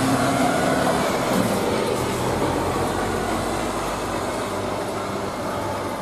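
Heavy diesel engine running steadily over outdoor street noise.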